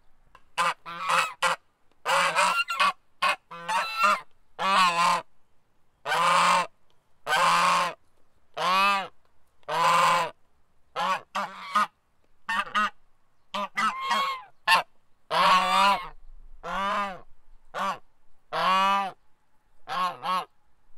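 A goose honking repeatedly: a long series of loud, harsh calls, some drawn out for most of a second and some short ones in quick runs of two or three.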